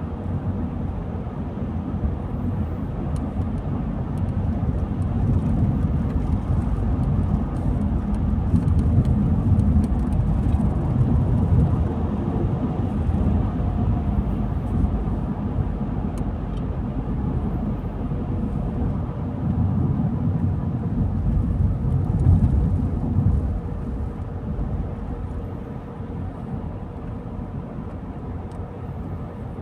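Car driving on a rural road: steady engine and tyre noise, strongest in the low range, with a faint steady hum. It gets somewhat quieter near the end.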